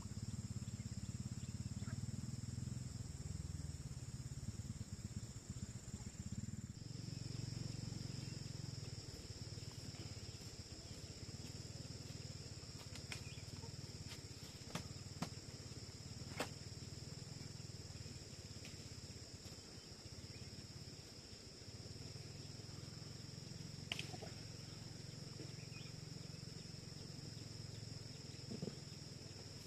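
Faint, steady high-pitched chirring of insects, with a low rumble underneath and a few sharp clicks or knocks.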